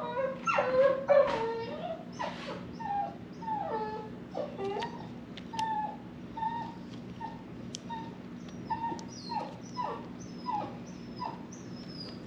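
A puppy whining: a string of short, high whimpers, each falling in pitch, louder and quicker in the first couple of seconds, then fainter cries at about one or two a second. A steady low hum runs underneath.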